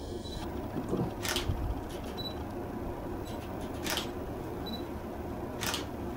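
DSLR camera shutter firing three single shots, about a second, four seconds and nearly six seconds in, each a sharp click. A faint short high beep comes a second or so before two of the shots, like the camera's focus-confirmation beep.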